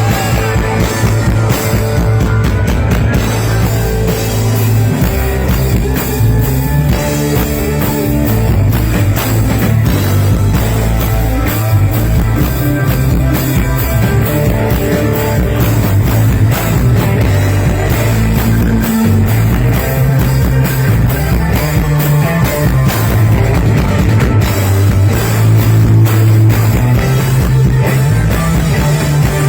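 Rock band playing live in an instrumental passage: electric guitar over a drum kit and a moving bass line, with no singing.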